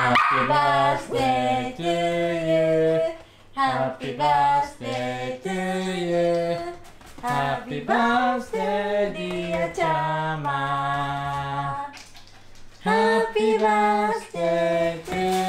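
Slow vocal music: a singing voice holding long notes in phrases of one to two seconds, with short breaks between them and little accompaniment.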